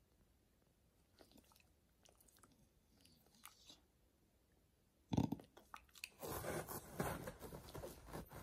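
A dog chewing and crunching something hard: a few faint clicks of its teeth, a sudden loud crunch about five seconds in, then steady loud crunching.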